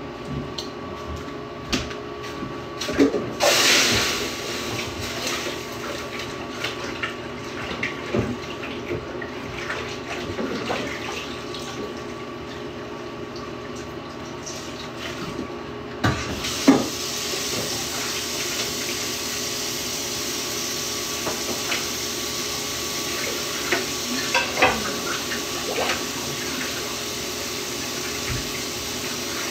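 Kitchen sink tap running while a couple of dishes are washed by hand, with scattered clinks and knocks of the dishes. The water gets louder and hissier about halfway through.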